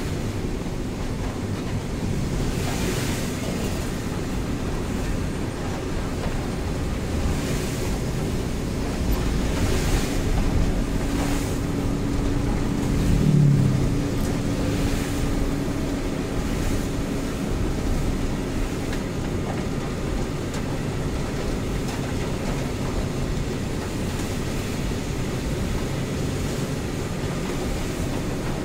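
Inside the cab of a Mitsubishi Fuso truck driving in heavy rain: a steady hiss of rain and tyres on the wet road over the low running of the diesel engine, with a few louder swishes now and then. About halfway through an oncoming truck passes alongside and the sound briefly swells with a low drone.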